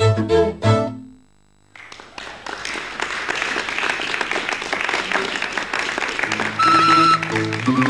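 Folk dance music stops suddenly under a second in; after a short pause an audience applauds for several seconds, and the music starts again near the end.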